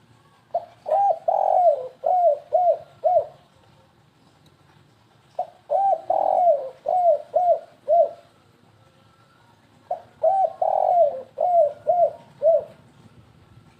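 Spotted dove (tekukur) cooing: three phrases, each a stuttering run of six or seven quick coos with one longer drawn-out coo near its start. This is the 'kuk 3 gagap' stuttering style used as a lure call.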